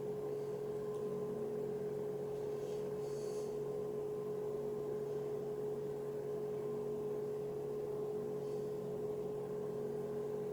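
A steady hum with one clear, unchanging tone, with a couple of faint high ticks about three seconds in and again near eight and a half seconds.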